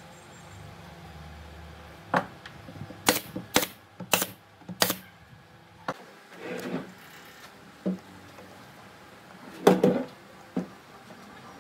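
A series of sharp knocks. Five come in the first half, the last four evenly spaced about half a second apart. They are followed by a brief scrape and a few duller, scattered knocks, the loudest of which comes near the end.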